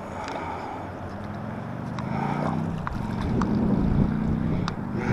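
A motor engine running with a low, steady hum that grows louder from about two seconds in, with a few light clicks over it.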